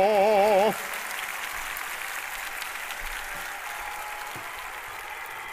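A held note with wavering vibrato cuts off under a second in, followed by steady applause.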